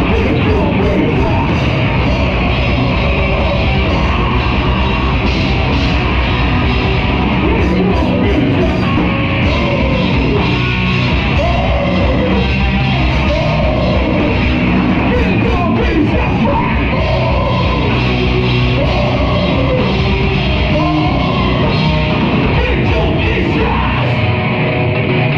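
A live heavy rock band playing loud, with drums and electric guitar under a vocalist yelling into a microphone.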